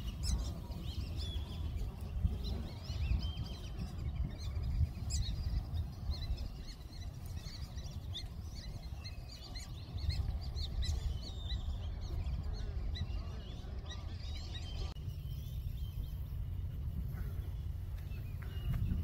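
A chorus of wild birds calling in a marsh, many short chirps overlapping, with a steady low rumble underneath. The calls thin out after an abrupt change about fifteen seconds in.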